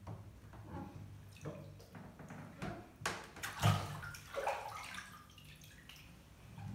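Bare feet stepping and splashing in shallow bathwater, a series of irregular splashes and sloshes in the tub, the loudest about halfway through.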